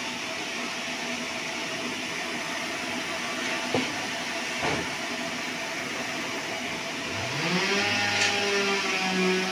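Wood-splitting bandsaw mill running steadily, with two short knocks a little under four and about five seconds in. About seven seconds in, a motor whine rises in pitch and holds there.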